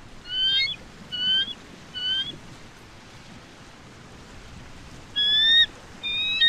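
Bald eagle calling: three short, high, whistled notes about a second apart, then after a pause of about three seconds two louder notes near the end.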